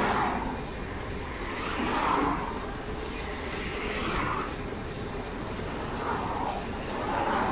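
City street traffic, heard steadily, with soft swells as vehicles pass about every two seconds.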